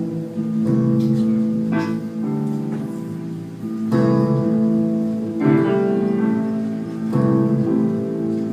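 Live instrumental music: a guitar strumming slow chords, a new chord struck about every one and a half to two seconds.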